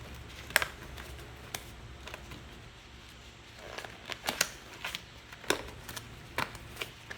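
Scattered light clicks and rustles of hands handling small engine parts and tools, over a low steady hum. The clicks cluster in the second half.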